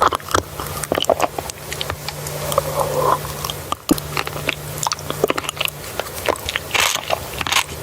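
Close-miked eating: a person biting and chewing food, with many short crackly, wet clicks and crunches coming irregularly.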